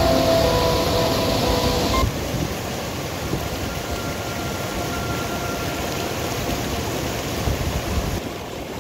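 Music, then about two seconds in an abrupt change to the steady rush of a shallow mountain stream flowing over rocks.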